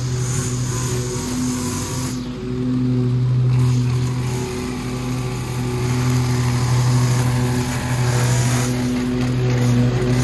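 Gas string trimmer engine running at high speed, easing off briefly a few times and picking up again.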